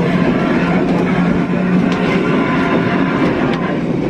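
Vintage electric tramcar running along the track, heard from inside the driver's cab: a steady rumble and rattle, with a low hum that fades out a little under two seconds in and a few sharp clicks from the running gear.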